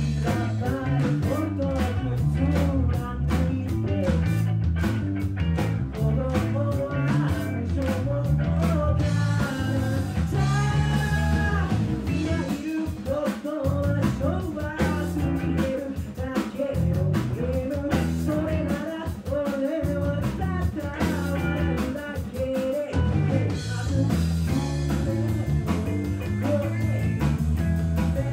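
Live band playing an upbeat funk-soul rock song: a man singing lead over electric bass and a drum kit.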